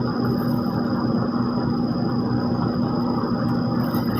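Heavy diesel machinery at an asphalt paving job running steadily, with an even engine hum and a thin high steady whine over it.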